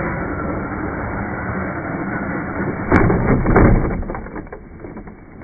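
Traxxas RC short-course truck jumping off a board ramp, with a steady rushing noise as it goes. About three seconds in there is a sharp knock followed by a short clatter of smaller knocks as it hits and bounces on the grass, then the noise dies down.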